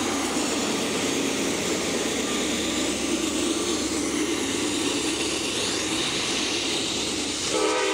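A steady low roar, then near the end the horn of Norfolk Southern AC44C6M locomotive #4439 suddenly starts to blow.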